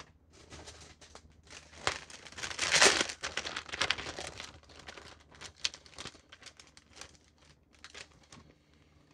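Model-kit packaging being handled, crinkling and rustling. It is loudest about two to three seconds in, then thins to a run of lighter crackles and clicks.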